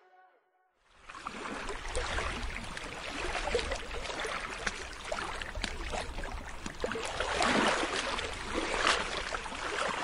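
Sea waves washing and breaking on the shore, a rushing, crackling surf with a low rumble underneath, starting about a second in and swelling louder twice near the end.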